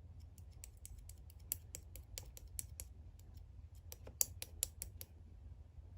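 A quick run of light, sharp clicks or taps, about four or five a second, stopping about five seconds in, over a faint steady low hum.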